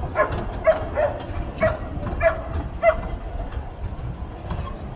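A dog barking, about six quick barks in the first three seconds, over the low rumble of narrow-gauge railway carriages rolling slowly past.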